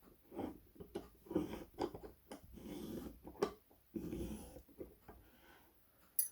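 Lock pick and tension wrench working a Sargent pin-tumbler lock, giving several small sharp clicks and scrapes. Irregular low, breath-like noises close to the microphone come in between them and are louder than the clicks.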